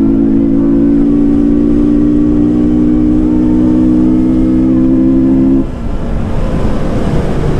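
KTM 200 Duke's single-cylinder four-stroke engine, fitted with a K&N air filter, running at steady revs under way. The steady engine note breaks off about five and a half seconds in, leaving a quieter, rougher rumble.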